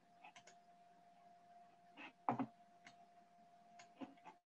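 Faint computer keyboard and mouse clicks over a steady low hum and a thin steady tone, with the loudest click about two seconds in.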